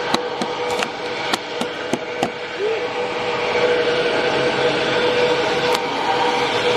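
Steady mechanical hum with one held tone, growing a little louder after a few seconds, under scattered sharp clicks of a metal scraper picking at osmosis blisters in gel coat over fiberglass.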